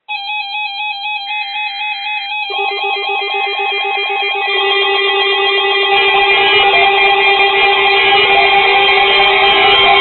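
Several NOAA weather radio receivers sounding their alert alarms at once: electronic warbling beeps that rapidly alternate in pitch, with more alarms joining about one, two and a half, four and a half and six seconds in so the sound grows louder and denser. Short buzzy data bursts, typical of the digital alert header on the broadcast, sound beneath the beeps in the first few seconds.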